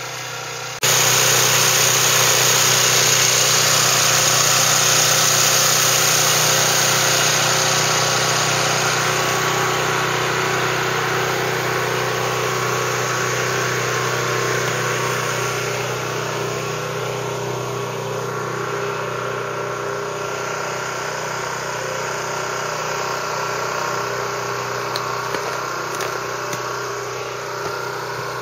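Small engine of a portable generator running steadily. It comes in abruptly about a second in.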